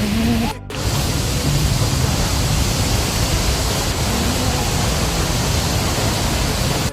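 Steady rush of falling and flowing water at a waterfall, broken by a brief cut about half a second in.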